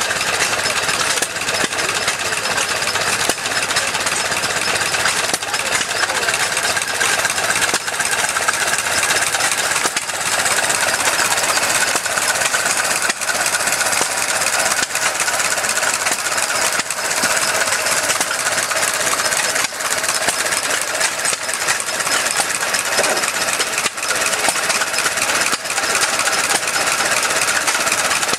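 1926 Ford Model T 20 hp four-cylinder flathead engine running steadily on a display stand. Its firing makes a fast, even stream of pulses that stays at a constant speed.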